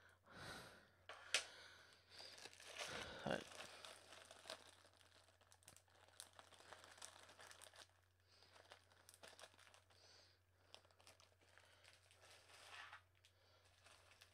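Faint crinkling and rustling of a plastic zip-top bag and candy wrappers being handled, with scattered small clicks, busiest in the first few seconds.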